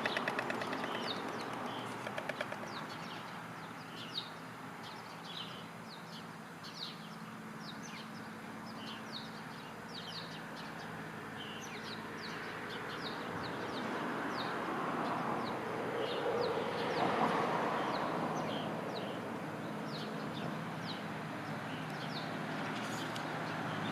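White storks' bill-clattering, a rapid run of clicks that fades out right at the start, with a short burst of clattering about two seconds in. After that, small birds chirp over and over while road traffic passes, swelling about two-thirds of the way through.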